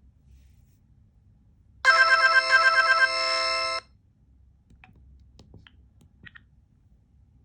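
Motorola RAZR V3 playing a short polyphonic ringtone through its loudspeaker: a fast run of repeated electronic notes, then a held chord that cuts off after about two seconds. Soft button clicks follow.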